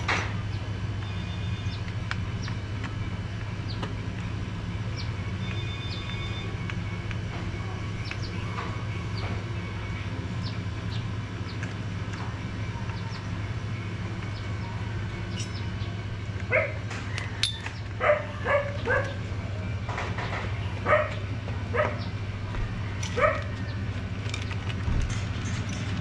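A dog barks in a run of short, sharp barks through the second half, over a steady low hum.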